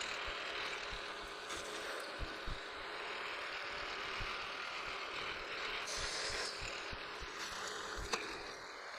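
Milling machine running, an 11/16-inch end mill cutting a hole in the bar stock: a steady whirring hum with cutting noise and a few light knocks.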